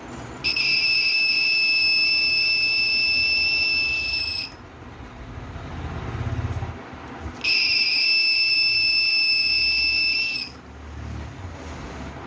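Homemade 9-volt battery door alarm's buzzer sounding a steady, high-pitched tone for about four seconds, cutting off, then sounding again for about three seconds.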